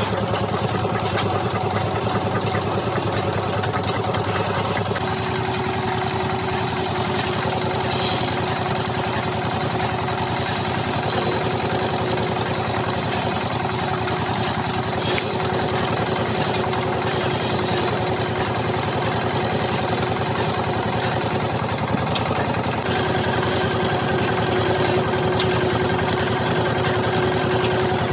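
Wood lathe running steadily: a constant motor hum with a fast rattling texture, its tone shifting slightly about five seconds in and again later.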